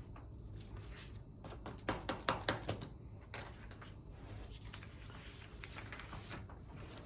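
Hand work on a part at a table: a quick run of sharp scraping strokes and taps about two seconds in, with a few fainter ones later, over a low steady hum.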